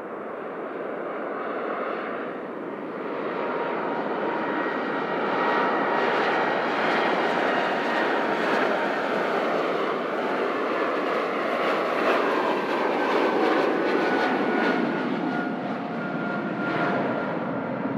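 Airliner's engines passing by: the noise builds over the first few seconds and stays loud, with a thin whine that slowly falls in pitch as the aircraft goes past.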